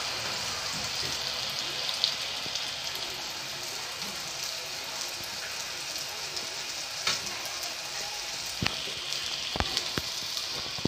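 Mushabak batter frying in a small pan of hot oil: a steady sizzle of bubbling oil, with a few sharp clicks of metal tongs against the pan in the second half.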